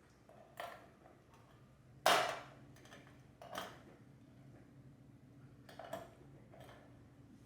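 A handful of light clinks and knocks of kitchenware being handled, the loudest about two seconds in, over a faint steady hum.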